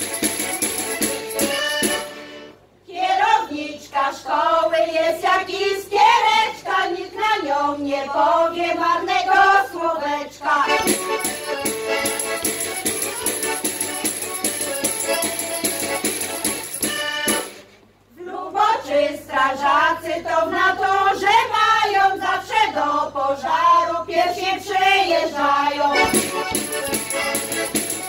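Women's folk choir singing a song in unison verses, with instrumental accompaniment. Two sung verses alternate with instrumental-only passages between them.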